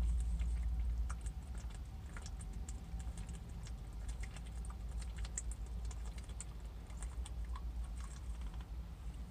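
A person gulping water from a plastic bottle: a steady string of small clicks and crackles from the swallowing and the thin bottle, over a low rumble.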